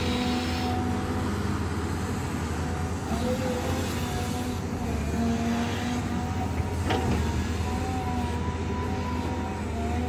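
Diesel engines of a Caterpillar excavator and bulldozer running steadily under work, a low rumble with whining tones that shift slightly in pitch. A single sharp metallic knock comes about seven seconds in.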